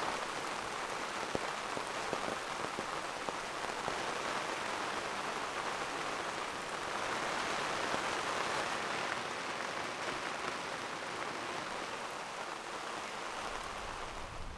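Heavy downpour of rain falling on open water and a sailboat's deck: a steady hiss with faint scattered drop ticks. Near the end the rain thins and a low rumble comes in.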